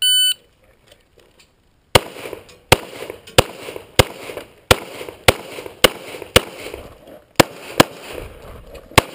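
Electronic shot-timer start beep, one short high tone, followed about two seconds later by a rapid string of about a dozen pistol shots, roughly one every half-second with a brief pause near the end, each with a short echoing tail. The shots are from a .40 S&W EAA/Tanfoglio Witness Elite Match pistol.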